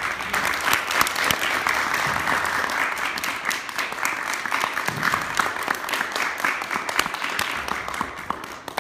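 A room full of students applauding, a dense patter of many hands clapping that eases off near the end.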